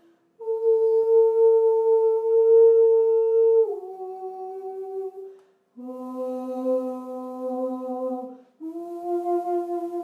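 Square Chladni plate scattered with sand, sounding steady electronically driven tones that step from one pitch to another. There are four held tones, each a few seconds long with a short break between them. The first and highest is the loudest, the next two are lower, and the last steps up again a little.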